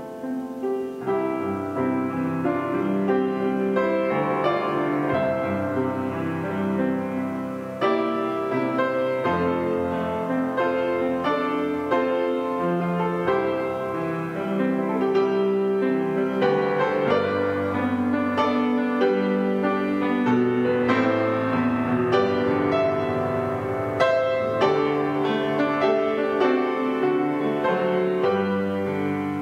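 Grand piano played solo, chords and a melody line going on without a break.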